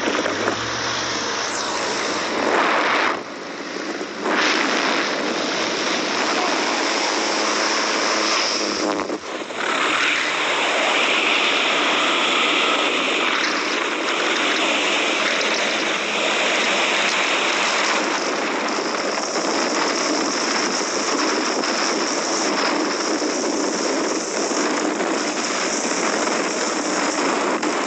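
Loud, steady rush of wind and propeller-engine noise inside a skydiving jump plane with its door open. The rush dips briefly a little after three seconds and again around nine seconds in.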